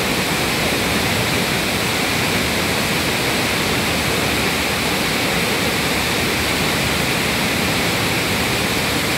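Loud, steady rush of a waterfall and the fast river below it.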